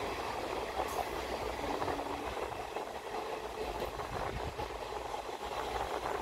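Passenger train running, heard from on board a coach: a steady rumble of wheels on the track.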